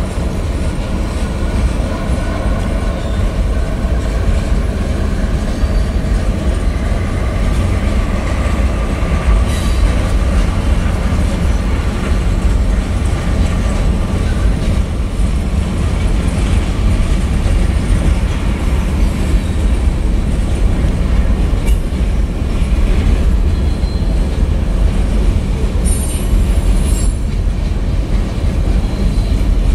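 Freight cars of a manifest freight train rolling past, a steady heavy rumble of wheels on rail with faint squealing tones from the wheels partway through.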